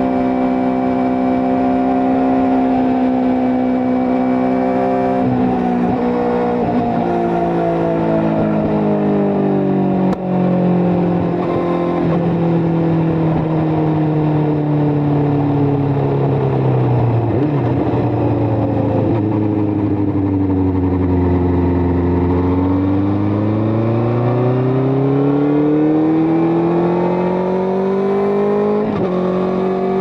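Benelli TNT600i's inline-four engine running on the move: the note holds steady for a few seconds, then falls gradually as the bike slows over about fifteen seconds, and rises again as it accelerates, with a brief break in the note near the end.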